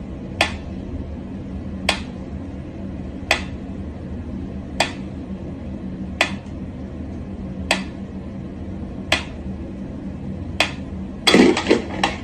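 Mechanical pendulum metronome ticking slowly, one sharp click about every second and a half. Near the end a louder burst of knocking and rustling breaks in between two ticks.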